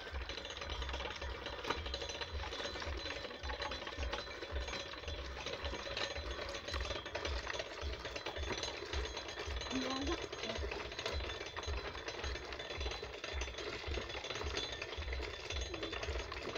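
Hand-cranked Bentall No. 2 disc coffee pulper running steadily with a fast mechanical rattle as ripe coffee cherries are fed through and stripped of their pulp.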